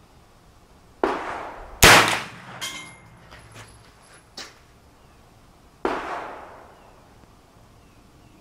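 Shots from a CMMG MK9T 9mm carbine: three sharp reports, the loudest about two seconds in, each trailing off in echo. Light metallic clinks follow the loudest shot.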